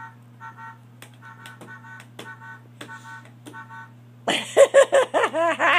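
A baby's pink toy Mini Cooper playing its electronic sounds: short repeated beeping tones with light clicks of its buttons being pressed. About four seconds in, loud high-pitched squeals break in.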